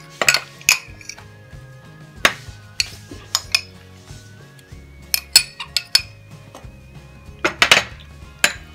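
Steel spoon clinking and scraping against a ceramic bowl and a glass dish as a food mixture is spooned from one to the other: sharp, irregular clinks in small clusters. Soft background music with held notes plays underneath.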